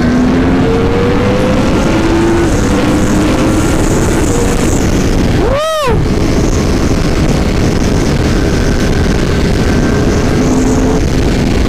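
Yamaha R1's crossplane inline-four engine pulling hard at high speed, heard on board under heavy wind rush on the microphone. The engine note climbs steadily, with a brief break about halfway through.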